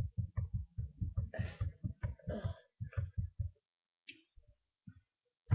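Typing on a laptop keyboard, picked up through the laptop's built-in microphone as a fast run of dull thuds, about six or seven a second, that stops a little past halfway; one louder thud near the end.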